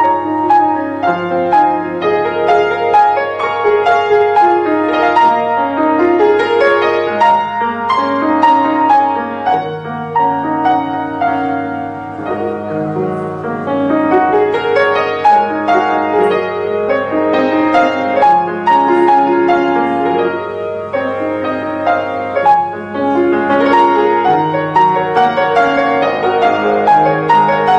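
Grand piano played solo: a flowing piano arrangement of a Chinese melody, with many notes sounding together across the low and middle range and a steady stream of new notes, briefly softer about twelve seconds in and again some twenty-two seconds in.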